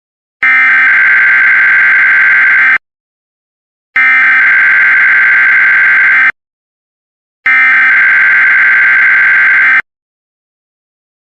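Emergency Alert System SAME header: three identical bursts of buzzing digital data tones, each a little over two seconds long and about a second apart, opening a Required Weekly Test.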